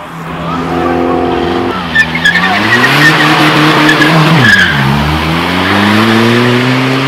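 A car is driven hard past, its engine revving up and down. The revs dip sharply about four and a half seconds in, then climb steadily again. Under the engine is the hiss and squeal of the tyres spinning on the road.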